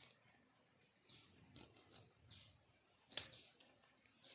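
Faint, repeated down-slurred bird chirps, about one a second, with a single sharp click about three seconds in.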